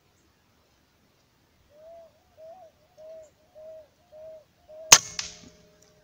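A single sharp rifle shot about five seconds in, with a second, smaller crack a quarter second later, fired at a perched eared dove through a scope. Before the shot, a run of six short, evenly spaced pitched notes.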